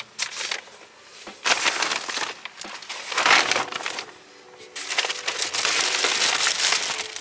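Paper grocery bags rustling and crinkling as they are handled and set down, in two long stretches of about two seconds each.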